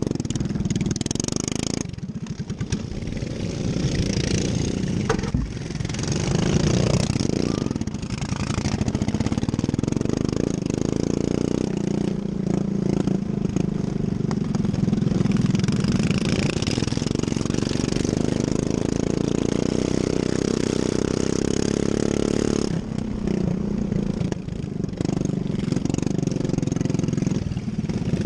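Racing lawn mower engine running hard, its revs rising and falling.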